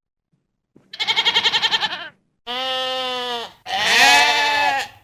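Goat bleating three times after about a second of silence. The first bleat is quavering and pulsing; the second is a steadier call, and the third is the longest and loudest.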